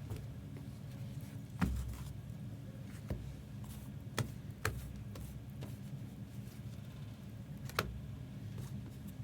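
Trading cards being handled and laid down on a table: a few sharp, scattered clicks and taps over a steady low hum.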